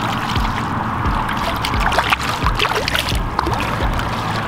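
Shallow water sloshing and gurgling against rocks, with small splashes and bubbling as a fish is let go from hands held in the water, over a steady low rumble.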